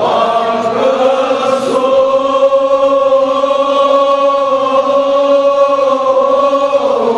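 Men's voices chanting a Kashmiri marsiya (Shia elegy) together. From about a second in they hold one long, steady note until near the end.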